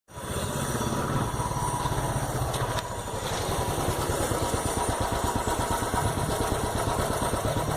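Royal Enfield Bullet's single-cylinder engine running steadily at low revs through its silencer, with a fast, even exhaust beat.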